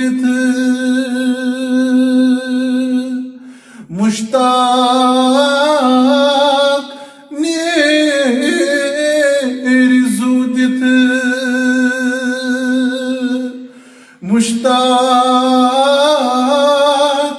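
A man singing a Kashmiri naat unaccompanied, drawing out long, ornamented held notes, with three short pauses between phrases.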